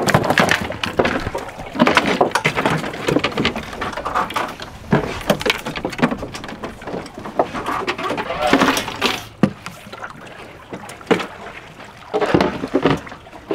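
Irregular splashing and knocking: water slapping around a small boat's stern and dive gear being handled on deck, with a louder splash about nine seconds in.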